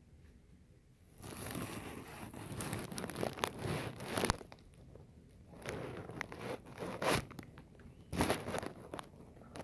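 Plastic bags rustling and crinkling as the empties are handled, in three spells with a few sharp knocks mixed in.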